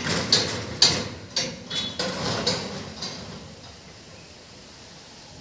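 Level-crossing boom barrier coming down onto its rest: a sudden metal clank, then a string of lighter clanks and rattles with a ringing note, dying away over about three seconds.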